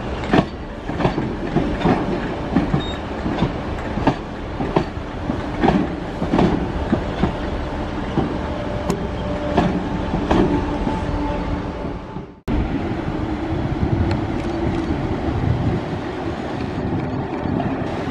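Merseyrail Class 507 electric train running past, its wheels clacking over rail joints in a steady rhythm. After a brief break about two-thirds through, a steadier rumble with a low hum from a Class 508 electric train moving slowly in the station.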